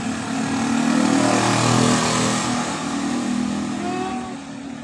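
A motor vehicle passing by: its engine grows louder to a peak about two seconds in, then fades away.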